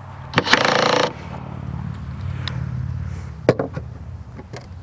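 Cordless drill/driver whirring for under a second, about half a second in, as it drives a 1/4-20 stainless machine screw into a rivet nut in the seat base plate. A steady low hum continues afterwards, with a few sharp clicks.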